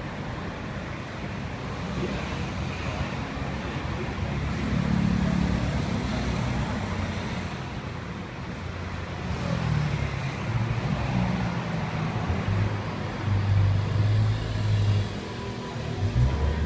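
Road traffic passing outside, a steady low engine rumble that swells a few times as vehicles go by.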